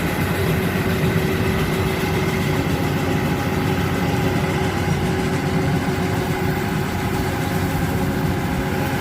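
Yanmar AW82V combine harvester's diesel engine running steadily, a constant machine drone with a few steady tones over it.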